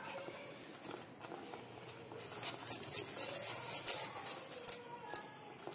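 Garlic being grated on a stainless-steel hand grater: quick scraping strokes, about four or five a second, getting louder from about two seconds in.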